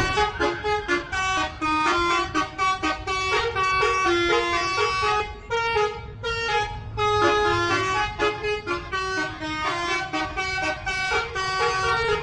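Bus telolet horn, a multi-tone air horn, playing a quick tune of short notes in changing chords, with a low rumble underneath.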